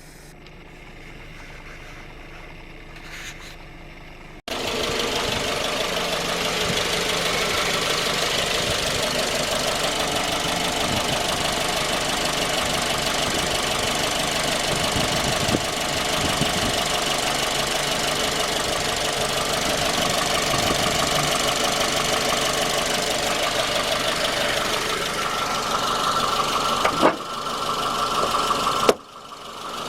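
Suzuki J20A 2.0-litre four-cylinder engine running with a knock. The owner traced the knock to a scored crankshaft journal at cylinder 3. The engine sound cuts in suddenly about four seconds in, after a quiet stretch.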